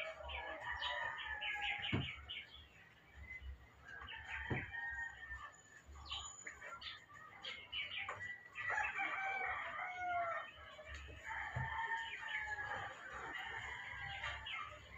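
Chickens clucking and calling, with two sharp knocks about two seconds and four and a half seconds in.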